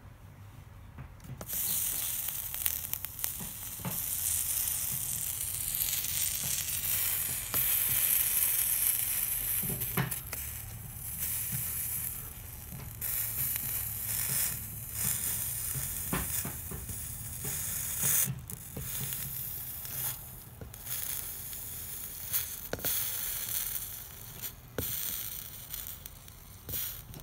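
Soldering iron melting solder along the copper-foiled interior seams of a stained glass lamp shade: the flux and molten solder sizzle. The sizzle starts about a second and a half in, swells and fades as the iron moves along the seams, and has scattered small clicks.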